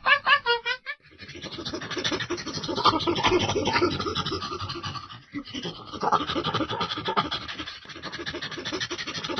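Monkey calls: a quick run of high squeals bending up and down in the first second, then dense, raspy, rapid chattering that briefly drops out twice.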